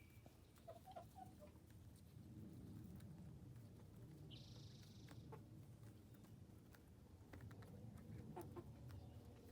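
Young chickens, about eleven to twelve weeks old, giving a few faint, short clucks and calls, over a low background rumble.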